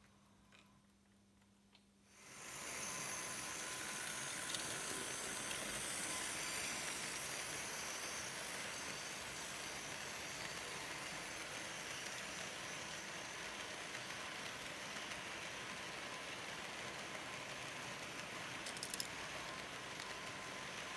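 Märklin H0 model ore hopper wagons rolling past on the track: a steady rattling rush that starts suddenly about two seconds in and holds, with a couple of sharp clicks near the end. Before it, a faint hum.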